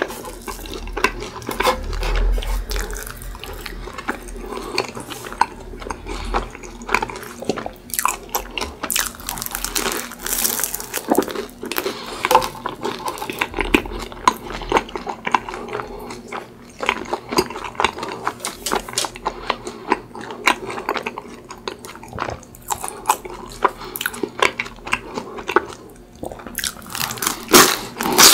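Close-miked chewing of a croffle with whipped cream and chocolate: wet mouth sounds with many small, irregular clicks and crunches, a few louder ones near the end.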